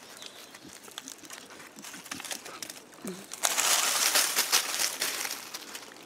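Dry twigs and leaf litter crackling and rustling as hands and a knife dig around a mushroom caught in roots. Faint scattered crackles at first, then a loud, dense stretch of crackling about three and a half seconds in, lasting nearly two seconds.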